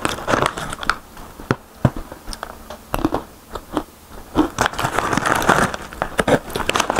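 Crunching and chewing of crispy fried fruit and vegetable chips, with a kraft-paper snack pouch crinkling as a hand reaches into it.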